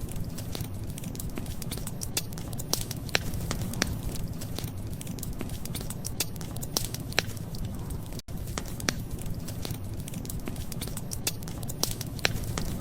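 Wood fire crackling: irregular sharp pops and snaps over a steady low rumble, with a momentary dropout about eight seconds in.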